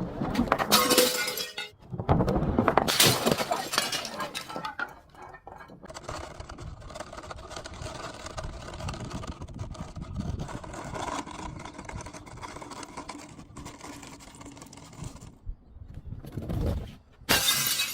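Glass bottles shattering: two loud smashes within the first four seconds, with a quieter stretch of continuous crunching and clinking in between and another smash near the end.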